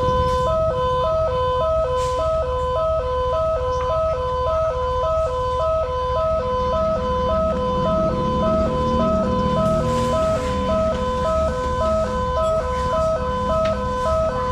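Railway level-crossing warning siren starting suddenly and sounding steadily, switching quickly back and forth between two tones at a fast, even tempo; it warns that a train is approaching and the barrier is closing.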